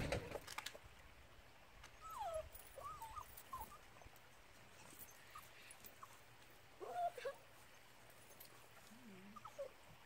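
A dog whining in short, high, wavering whimpers, a few together about two seconds in, again around seven seconds and near the end, after a brief clatter at the very start.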